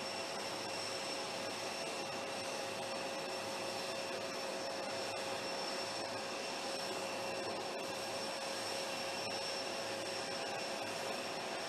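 Steady jet-turbine whine over a rushing hiss from the parked Air Force One, a Boeing 747 (VC-25A), its turbines running on the ground. Several high whining tones hold level throughout, with no change in pitch.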